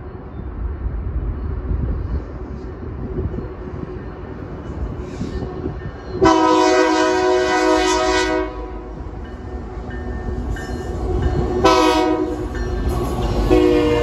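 Nathan K3LA three-chime air horn on a freight locomotive: one long blast, a short blast, then another long blast starting near the end. Underneath, the low rumble of the approaching train, growing as the locomotive and its tank cars come alongside.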